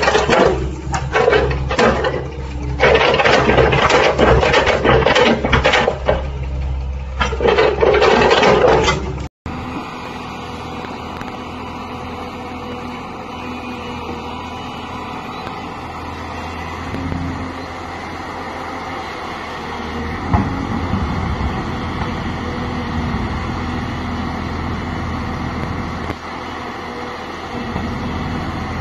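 Heavy machinery engine running. For about nine seconds it is loud and rough, with surging noise. After a sudden cut it becomes a steadier, quieter engine hum.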